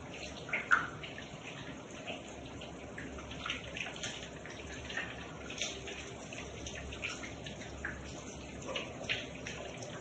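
AI-generated (Hunyuan Foley) shower sound: a steady stream of running water with soft droplets pattering and splashing at irregular moments, one sharper splash near the start.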